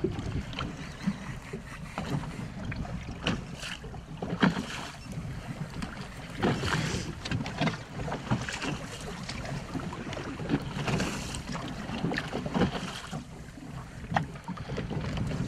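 Wind buffeting the microphone and water lapping against a small boat's hull, with scattered irregular knocks and clicks.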